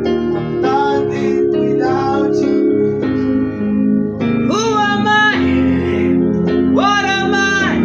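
Song intro: a voice singing long held notes without clear words, swooping up into two long notes in the second half, over strummed acoustic guitar accompaniment.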